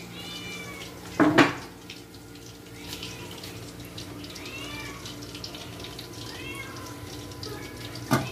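Steel plate lid clattering onto a pot on a gas stove as the biryani is sealed for dum cooking: a loud metallic clash about a second in and a shorter one near the end. Between them come four short high squeals that rise and fall, over a low steady hum.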